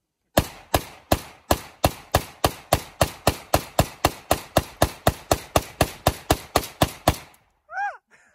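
AK-pattern rifle fired in rapid single shots: about two dozen evenly spaced shots, three to four a second, that stop abruptly about 7 seconds in.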